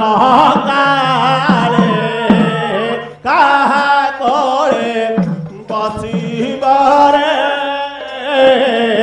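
Devotional singing of an Odia Pala song, sung in long wavering phrases with short breaks between them, accompanied by a painted barrel drum (mridanga) and small hand cymbals.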